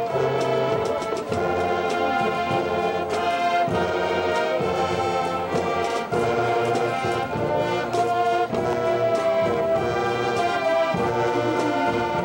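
High school marching band playing a brass-heavy piece in sustained chords, with occasional drum hits.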